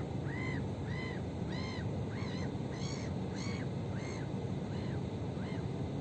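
Gulls calling: a run of about a dozen short rising-and-falling cries, roughly two a second, growing fainter near the end, over a steady low hum.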